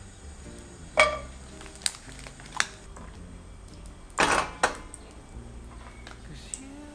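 A few sharp clinks and knocks of household items being handled, the first about a second in with a short ringing tail, and a brief scrape about four seconds in, over soft background music.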